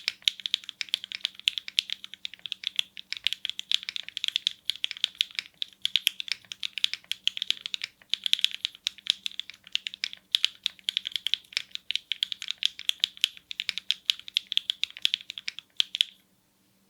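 Fast typing on the Baldr65 glass-cased mechanical keyboard, fitted with HMX Swift linear switches and KDS keycaps. It is a dense run of quick, bright keystroke clacks that stops near the end.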